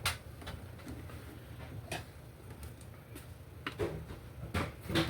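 Scattered light clicks and knocks of equipment being handled, a few seconds apart, over a steady low hum.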